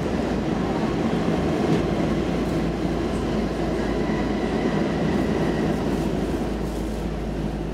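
Stockholm Metro C14 subway car running through a tunnel, heard from inside the carriage: a steady running noise of wheels on rails. A faint high whine comes in about halfway through.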